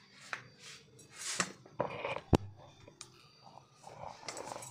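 Hands pressing and patting a dough ball flat on a floured silicone mat: soft, scattered rubbing and dabbing sounds, with one sharp click a little over two seconds in.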